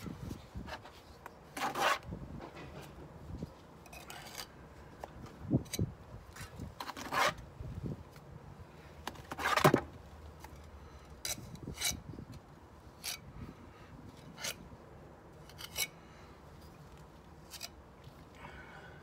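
Steel bricklayer's trowel scraping mortar in a plastic bucket and against brickwork in irregular strokes. The loudest scrape comes about ten seconds in, and the strokes are shorter and lighter after that.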